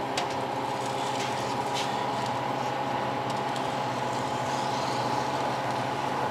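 Harvest Right medium freeze dryer running steadily after its pre-cool, with a hum of several fixed tones. A few faint clicks and scrapes come as a metal tray is slid onto its shelf.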